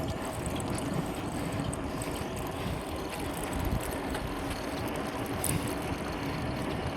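Steady wind noise on the microphone and road rumble from a moving bicycle.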